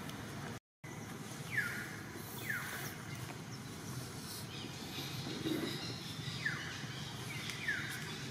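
Four short, falling chirps from an animal over a steady low background noise, with a brief cut to silence just under a second in.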